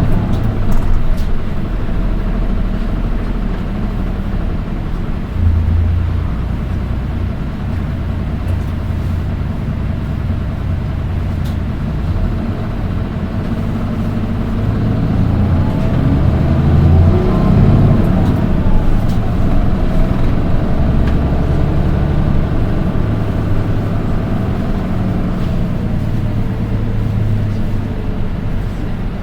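Nissan Diesel Space Runner RM820 city bus engine running under way, its pitch rising and falling around the middle as it pulls away and changes speed. The engine has an unusually shrill, high-pitched note that is peculiar to this particular bus.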